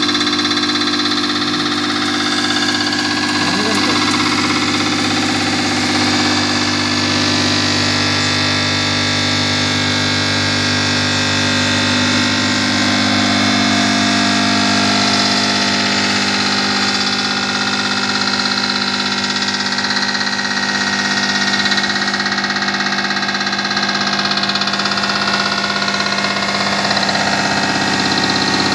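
CNC machine running steadily while cutting chuck jaws: a continuous mechanical hum made of several held tones over a hiss.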